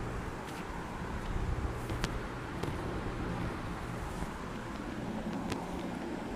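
Steady low background rumble, like distant traffic, with a few faint sharp clicks spread through it, one a little louder about two seconds in.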